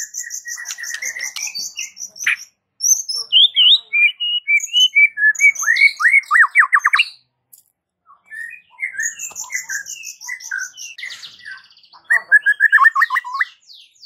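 White-rumped shama (murai batu) singing a varied song of clear whistled phrases and fast repeated trills, loudest in its first half, breaking off for about a second and a half near the middle, then resuming and ending in another rapid trill.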